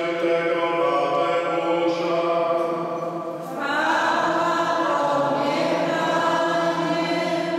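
Voices singing a slow liturgical chant in long held notes, with a new phrase starting about three and a half seconds in.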